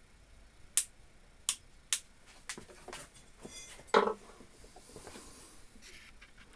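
Sharp clicks and light metallic clinks of small metal parts and tools being handled on a workbench, with a louder knock about four seconds in.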